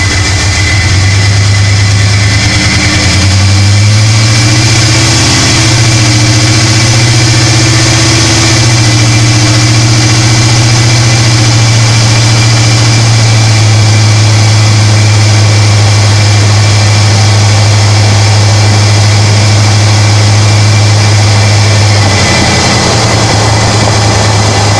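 Supercharged 5.4-litre V8 of a first-generation Ford F-150 SVT Lightning running. Its pitch rises a few seconds in, holds steady, and drops back about 22 seconds in.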